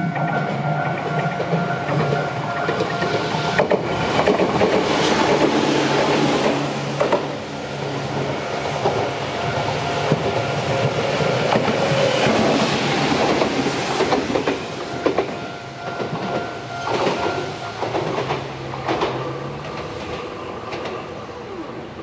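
Japanese level-crossing alarm ringing its steady electronic bell while an electric commuter train passes over the crossing. The train's wheels clack over the rail joints, loudest around the middle. The alarm stops a few seconds before the end, as the crossing clears.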